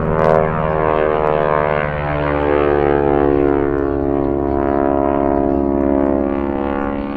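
Radial engine of a Stearman wingwalking biplane, heard from the ground as a steady drone whose pitch wavers up and down as the aircraft climbs and turns through aerobatics. A brief click sounds near the start.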